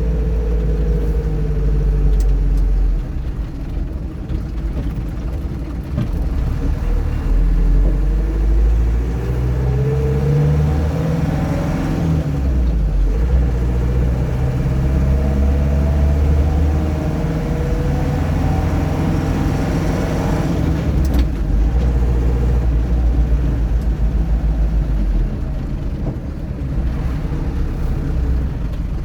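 Land Rover Series III being driven: its engine runs under load, the pitch climbing and dropping back several times as it goes through the gears.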